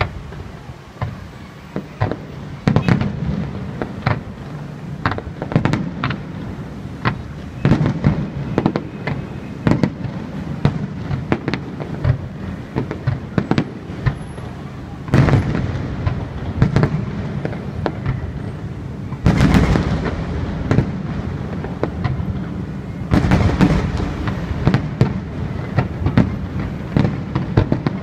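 Aerial fireworks shells bursting one after another in a steady string of bangs, building into dense rapid-fire barrages about halfway through, again a few seconds later and once more near the end.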